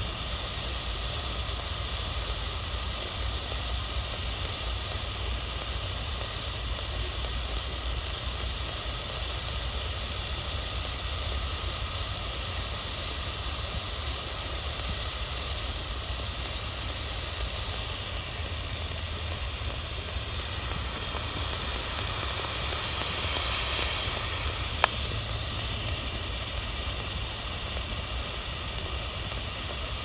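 GESAIL 1500-watt electric immersion heater hissing steadily in a 5-gallon bucket of water as it heats it. The hiss swells briefly about three quarters of the way through, and there is a single sharp click soon after.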